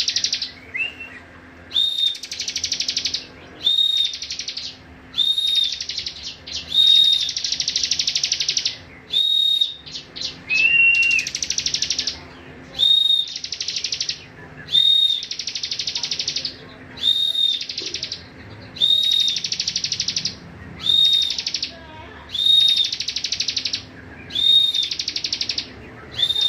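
Cibon songbird singing a bren-style song. Each phrase is a short clear note followed by a loud, rapidly pulsing buzzing trill of about a second, repeated over and over every couple of seconds.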